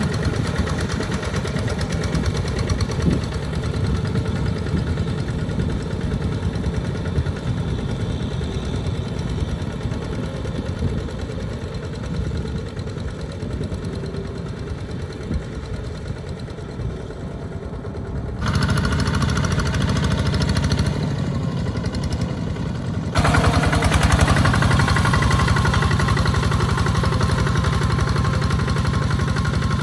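Walk-behind two-wheel tractor's engine running steadily while plowing a wet rice paddy. The sound steps up abruptly in level twice in the second half.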